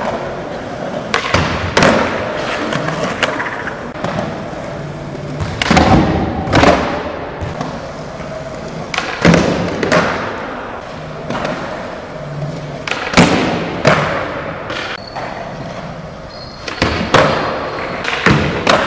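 Skateboard wheels rolling on smooth concrete, broken by sharp board clacks and landing thuds, mostly in pairs about five times, echoing in a large hall.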